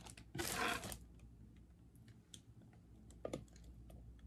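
A brief rustle of a plastic bag as a makeup mirror is pulled out, then light clicks and taps of the chrome mirror being handled and turned, one sharper click about three seconds in.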